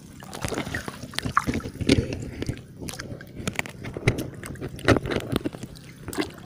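Shallow water sloshing and splashing as a fishing net is pulled and handled by hand, with irregular small splashes and drips.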